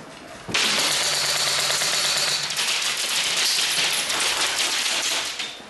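Airsoft electric rifle firing a long full-auto burst: a fast, continuous mechanical rattle of shots that starts abruptly about half a second in and lasts about five seconds.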